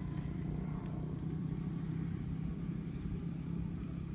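An engine or motor running steadily, an even low hum that does not change.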